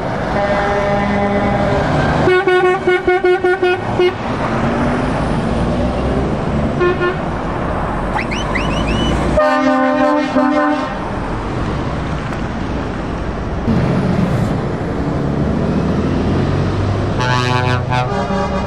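Lorry air horns sounding as trucks drive past. There is a quick run of about five toots a second a couple of seconds in, a long steady blast around ten seconds in, and another horn near the end, all over the steady sound of diesel engines and tyres.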